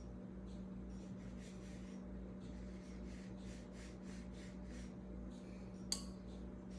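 Paintbrush stroking across watercolour paper: a run of short, soft scratchy strokes, several a second, with one sharp tick near the end.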